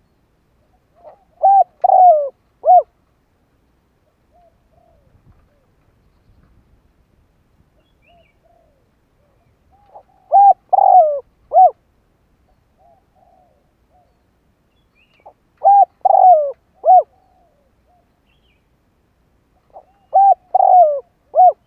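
Spotted dove cooing: four phrases of three or four short, down-slurred coos, a phrase every five seconds or so, with faint soft notes between them.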